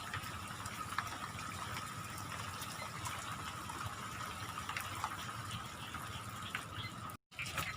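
Steady rain falling, an even hiss with scattered drop ticks and a faint steady high tone running through it. The sound drops out completely for a split second near the end.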